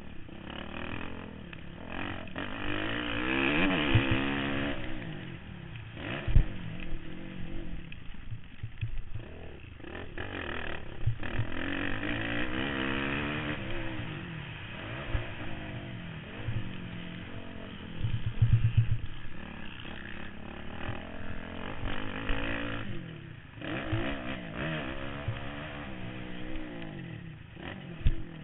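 Motocross bike engine racing round a dirt track, revving up and easing off again and again as the rider works through the turns and straights, heard from a helmet-mounted camera. A few sharp knocks cut in, loudest about six seconds in and around eighteen to nineteen seconds.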